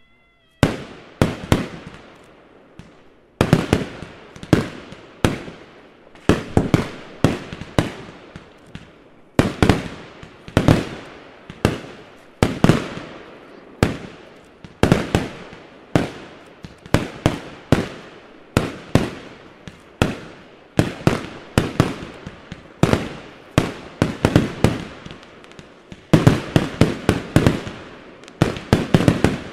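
Aerial fireworks of a closing display: a steady run of sharp shell bursts, about one to two a second, each trailing off in a rolling echo, growing denser and faster near the end.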